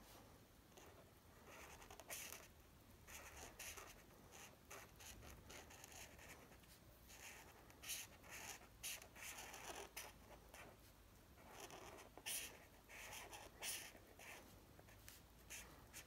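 Faint scratching of a felt-tip marker on paper, in quick, uneven back-and-forth strokes as an area is coloured in.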